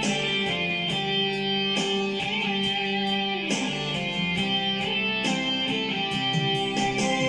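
Instrumental introduction of a karaoke backing track, a melody led by guitar with no singing.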